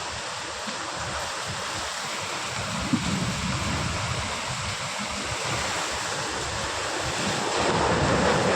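Heavy storm rain pouring steadily while strong wind gusts buffet the microphone, swelling louder near the end. There is a single sharp knock about three seconds in.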